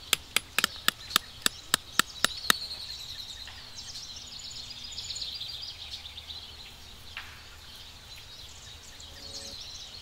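A hammer striking a tent stake about ten times in quick, even blows, roughly four a second, stopping after two and a half seconds. Birds then chirp faintly.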